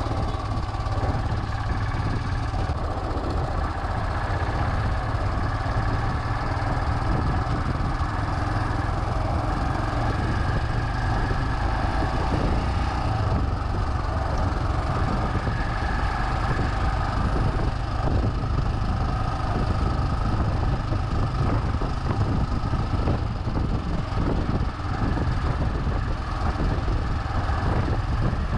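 Royal Enfield Himalayan's single-cylinder engine running steadily under way, heard through a chest-mounted action camera's built-in microphone.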